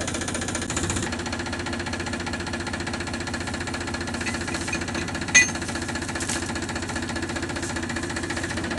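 Tractor diesel engine idling steadily, with one short sharp clink about five seconds in.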